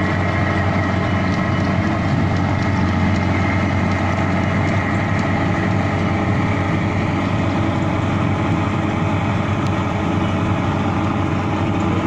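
Engine of a small rice harvesting machine running steadily with a constant drone.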